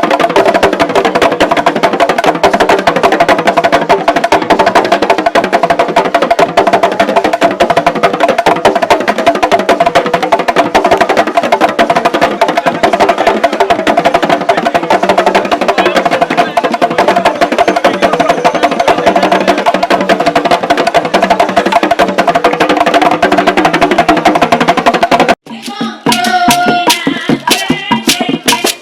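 Loud percussion-driven music, dense strikes over a steady held tone, which cuts off abruptly about 25 seconds in; a sparser run of separate knocks and clacks follows.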